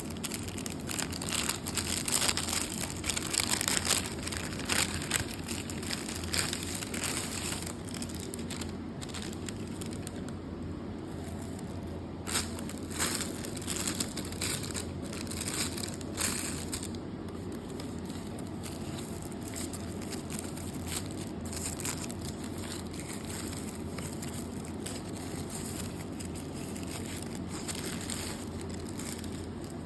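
Packaging crinkling and rustling as a parcel is unwrapped, busiest and loudest in the first few seconds, then in scattered crackles, over a steady low hum.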